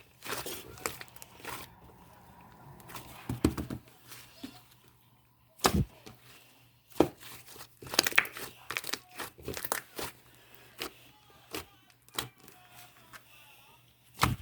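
Irregular crinkling, rustling and tearing sounds with scattered sharp clicks, as of packaging or paper being handled.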